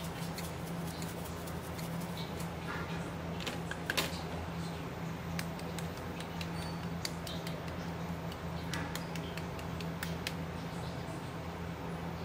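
A handheld shaker being shaken and tapped over fish fillets on a plastic cutting board: light, irregular clicks and taps, one sharper knock about four seconds in. A steady low hum runs underneath.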